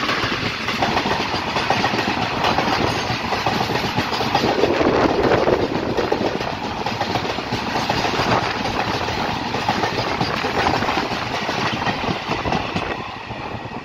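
Indian Railways express train coaches passing at speed close by: a loud, continuous rush and rumble of wheels on rail, fading a little near the end.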